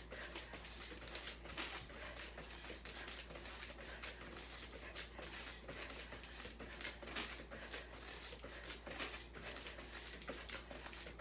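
Soft thuds and taps of hands and feet landing on a workout mat during plank jacks with shoulder and hip taps, a few a second in an uneven rhythm.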